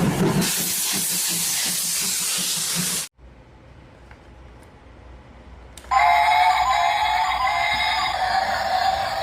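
Battery-powered Thomas toy train playing its sound effects: a loud steam hiss for about two and a half seconds that cuts off suddenly, then, after a short pause, a steady electronic tune of held tones.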